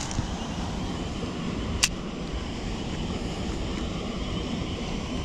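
Steady wind noise rumbling on the microphone, with one sharp click a little under two seconds in.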